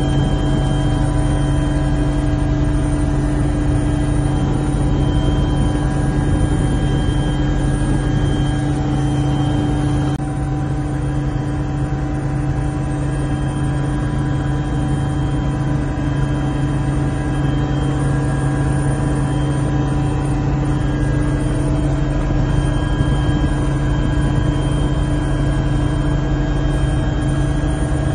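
Steady in-cabin drone of a helicopter in flight: the turbine engines and rotor give a constant low hum with several steady tones above it.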